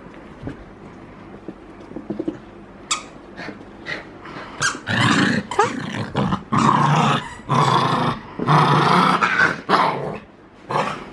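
A dog growling in play during a tug-of-war over a rubber toy, in a series of loud rough bursts that begin about halfway through.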